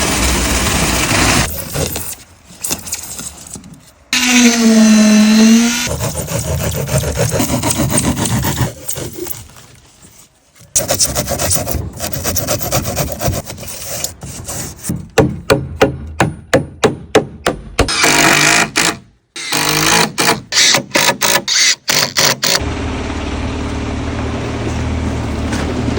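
A string of short construction-site sounds cut one after another while an insulated concrete form foundation is being built and poured. It goes from machinery running, to a pitched whine that dips and rises again about four seconds in, then runs of sharp, rapid clicks and knocks, and ends on a steady low hum.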